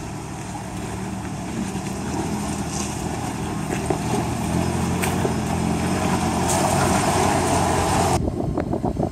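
A first-generation Toyota Tacoma pickup's engine running as the truck crawls slowly over a rocky dirt trail, growing louder as it approaches.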